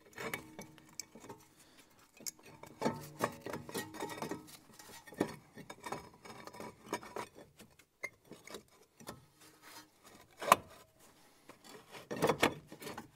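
Front brake caliper assembly being fitted over the brake rotor: scattered metallic clicks, knocks and scraping as it is worked into place, with a sharp knock about ten seconds in.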